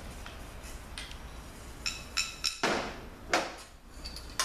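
Metal transmission parts handled on a metal workbench: a few short ringing metallic clinks about two seconds in, then two heavier knocks as an aluminum clutch drum is set down on the bench.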